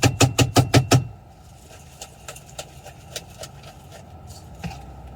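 Food being chopped in a kitchen: a quick run of sharp knocks, about six a second, stopping about a second in, followed by scattered light ticks and handling sounds.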